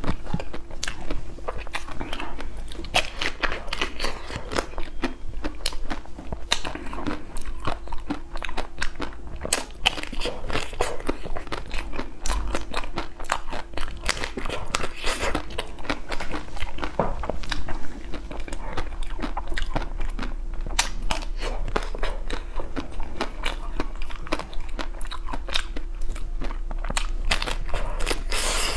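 Close-miked biting and chewing of a chocolate-coated ice cream bar, the hard chocolate shell crunching and crackling in a dense run of small clicks.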